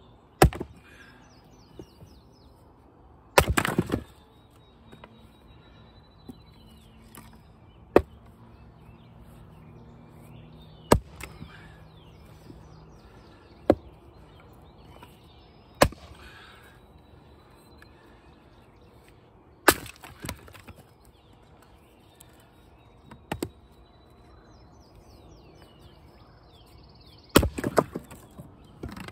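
Wood splitting with an axe on knotty, crotch-grained firewood rounds, mostly red maple. About nine sharp chopping strikes land a few seconds apart, and two of them are followed by a short crackle as the wood tears apart. Birds chirp faintly in the background.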